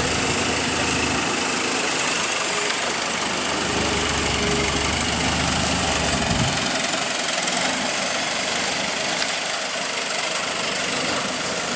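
An engine idling steadily, with a constant low hum that does not change.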